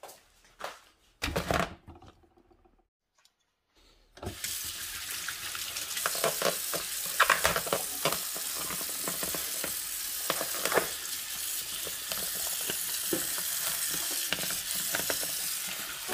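A few knocks, then a short gap; about four seconds in, a kitchen tap starts running into a stainless steel sink, the stream splashing on a foam meat tray, with plastic wrap crinkling under the hands.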